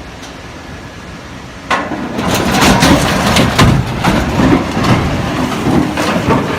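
Heavy vehicle crash: a steady rumble, then a sudden loud crunching of metal and wood about two seconds in, followed by a long run of banging and crushing impacts.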